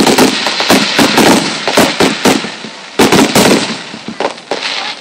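Fireworks bursting over water in rapid volleys: many sharp bangs overlapping, with crackle between them. There is a short lull just before three seconds in, then a new cluster of bangs.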